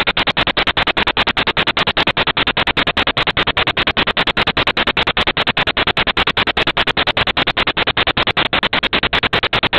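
A hedgehog chewing buttered bread: a fast, even run of clicking chews, about seven to eight a second, that never pauses.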